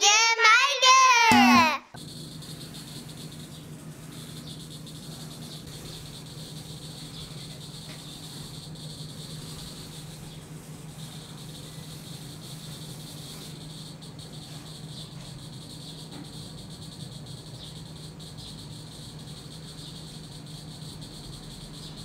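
A short sung jingle for about the first two seconds, then a steady high chirring of insects, with a low steady hum beneath.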